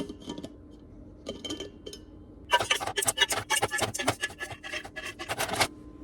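A few light clicks, then a quick run of rubbing or scraping strokes, about five a second for roughly three seconds.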